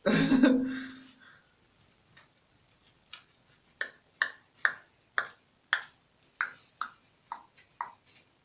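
Sharp plastic clicks, about two a second, starting about three seconds in, as strands of hair are pulled through the holes of a plastic highlighting cap. A short loud sound comes at the very start.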